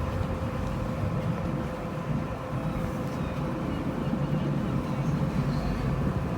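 Boat's engine running steadily as the boat motors along, a low rumble with a faint steady hum over it.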